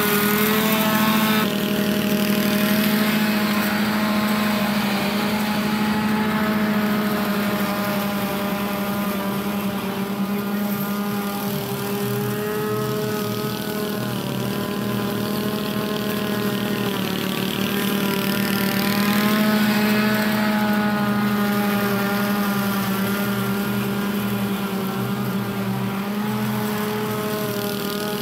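Toro Personal Pace self-propelled walk-behind lawn mower running steadily under load while cutting tall, weedy grass, its engine pitch wavering slightly as the load changes.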